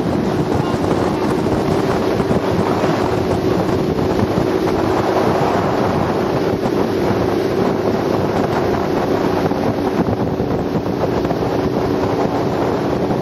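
Open motorboat's engine running steadily at speed, a constant hum under rushing water, with heavy wind buffeting the microphone.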